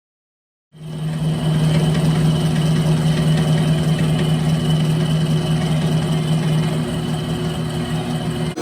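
Milling machine running steadily, a strong low hum with fainter steady higher tones over it. It cuts in abruptly about a second in.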